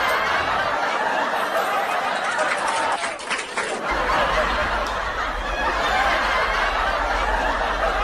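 People laughing, the laughter changing with a cut about four seconds in.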